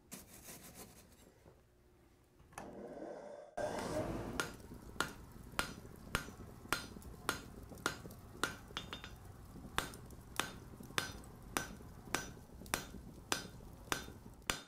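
Blacksmith's hammer striking on an anvil in a steady, even rhythm, a little under two blows a second, each blow ringing briefly. It starts suddenly about three and a half seconds in, after a stretch of low rustling.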